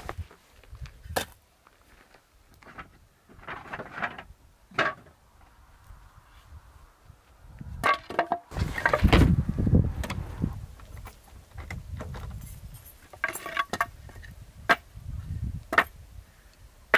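Short wooden boards knocking and clattering against each other as they are handled and stacked, with scraping and shuffling between the knocks. Around the middle there is a longer, louder stretch of scraping and knocking.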